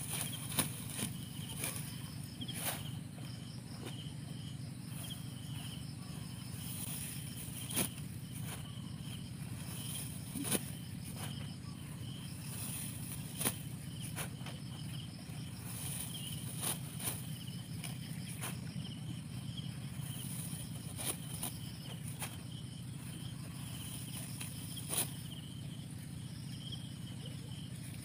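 Rice stalks being cut with a hand sickle and gathered, heard as occasional short sharp snaps every few seconds. Underneath runs a steady chorus of chirping insects over a steady low hum.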